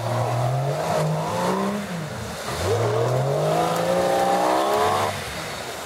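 Jeep Cherokee XJ engine revved hard twice under load, pitch climbing and held for a couple of seconds each time before dropping back, as the Jeep, hung up in a brushy gully, tries to drive forward.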